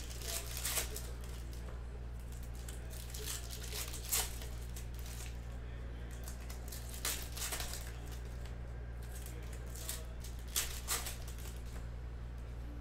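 Foil trading-card packs being torn open and the cards handled: scattered crinkles, rustles and clicks, some sharper than others, over a steady low hum.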